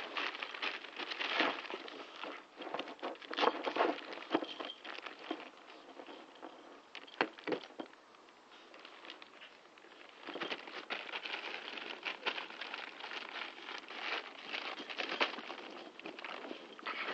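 Lab cross Staffie puppy scrabbling about on a trampoline mat and mouthing the padded net pole: a rapid jumble of scuffs, patters and crinkles. It is busiest in the first few seconds and again through the second half, quieter in between.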